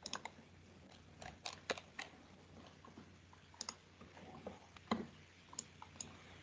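Faint computer keyboard typing through an open microphone: scattered, irregular key clicks over a faint low hum.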